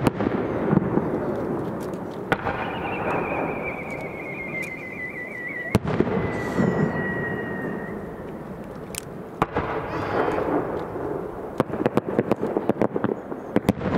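Aerial firework shells bursting with sharp bangs and rolling echoes. A high whistle falls slowly in pitch from about two to six seconds in, and a fast run of crackling bangs fills the last few seconds.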